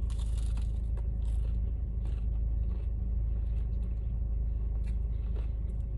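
Steady low hum of a car idling, heard from inside the cabin, with short crunching and rustling from someone eating a crispy grilled cheese sandwich and handling its wrapper, the loudest burst right at the start.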